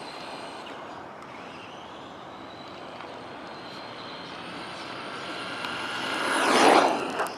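A battery-powered RC truck's motor whining as it drives. It grows louder as the truck comes near and passes close about six and a half seconds in, and a few sharp clicks follow near the end.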